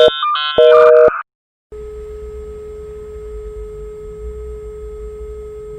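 Telephone busy signal: a two-note tone pulsing on and off about every half second, with higher stepped electronic tones between the pulses. After a short break it is followed by one steady tone over hiss and a low hum.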